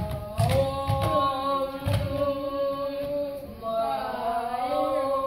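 Children's voices chanting in long held notes that slide slowly up and down, with a few low thumps in the first two seconds.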